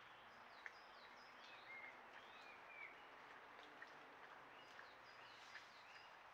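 Faint songbird song: a string of short chirps and whistled notes, some sliding down and some up in pitch, over the steady hiss of a trail camera's microphone, with a few faint clicks.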